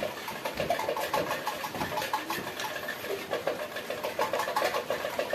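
Felt-tip pen scribbling fast on paper: quick runs of short squeaky strokes, several a second, with a brief pause past the middle.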